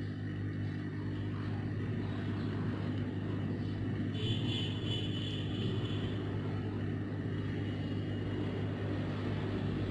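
Hot-air rework station blowing steadily on a surface-mount MOSFET to melt its solder and lift it off a motherboard: a continuous low hum and drone of air.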